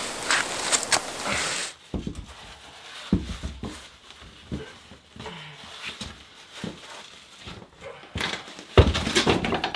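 A heavy stone being handled over a flagstone floor: a series of dull thumps and scrapes, loudest near the end. In the first couple of seconds, crunching and rustling of dry leaves and soil as stones are dug out on the slope.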